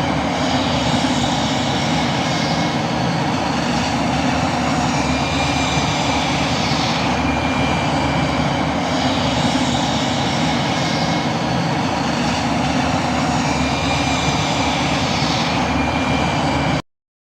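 Star Wars droid starfighter engine sound effect: a steady, rough engine roar with a faint high whine that comes and goes and a hissing swell every couple of seconds. It cuts off abruptly near the end.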